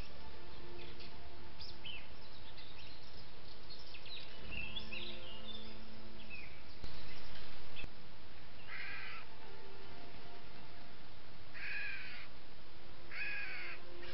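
Wild birds calling in woodland over the steady hiss of a trail camera's microphone: small birds chirp in the first few seconds, then harsh, crow-like calls sound four times, each under a second, in the second half.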